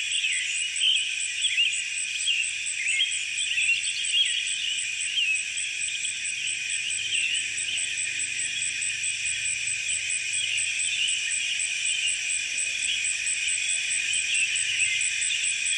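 Outdoor insect chorus: a steady high buzz with an even pulse of about four beats a second, with many short chirps from small birds over it, busiest in the first half.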